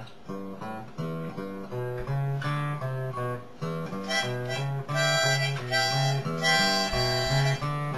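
Acoustic guitar picking a short bluesy tune over a stepping bass line; from about halfway a louder instrument holding sustained chords joins in.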